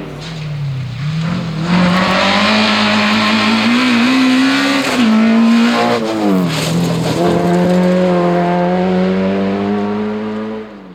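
Rally car engine running hard, its pitch climbing for several seconds, then falling sharply twice past the middle before holding steady. The sound fades out just before the end.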